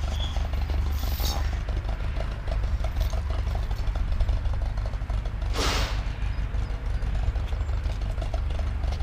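An engine idling steadily, with light rattling and one short hiss a little past halfway.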